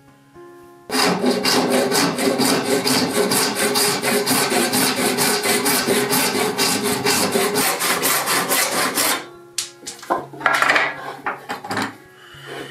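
Hand filing on a metal part of a Stanley No. 1 hand plane, clamped in a wooden vise: quick, even back-and-forth strokes, about five a second, starting about a second in and stopping after about eight seconds, then a few slower, uneven strokes.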